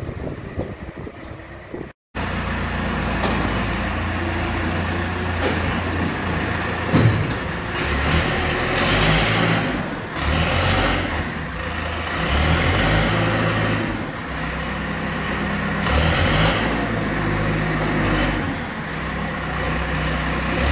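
Diesel engine of a 21-year-old JCB Loadall telehandler droning as it works, its pitch rising and falling with the throttle, with swells of rushing noise as the bucket pushes into the wheat pile and one knock about seven seconds in.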